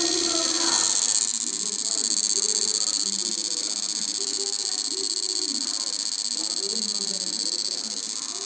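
Chinese-made electric fishing machine's inverter board running under test, giving a steady high-pitched electrical whine that strengthens about a second in.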